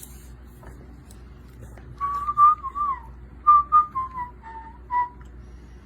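Pet cockatiel whistling a short tune: a string of clear whistled notes starting about two seconds in, gliding and stepping gradually lower, and ending about five seconds in.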